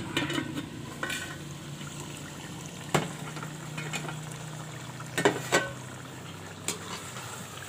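Chicken and tomatoes sizzling and bubbling in an aluminium karahi over a fire, with a few sharp metallic knocks, near 3 s, twice around 5 s and just before 7 s.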